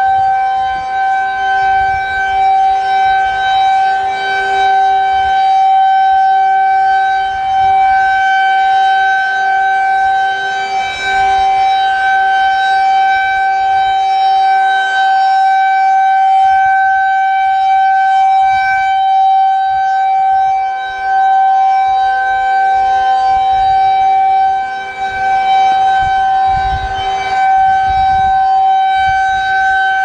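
Federal Signal 2001-SRNB rotating electromechanical siren sounding a full alert: one steady tone held at constant pitch, swelling and fading as the horn turns.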